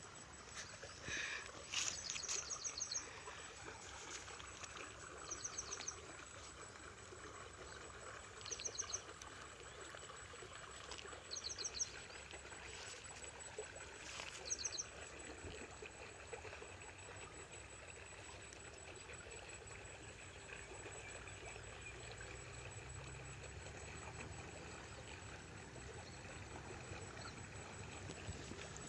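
Faint open-air ambience with a bird giving short, high, rapid chirping calls about every three seconds during the first half, over a steady background hiss.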